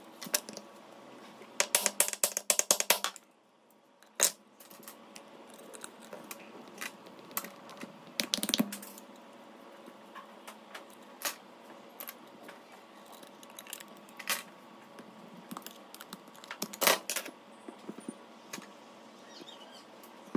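Plastic fan housing and small hand tools clicking and clattering on a tabletop as they are handled: a quick rattle of clicks about two seconds in, then scattered single clicks and knocks, with a louder knock near the end.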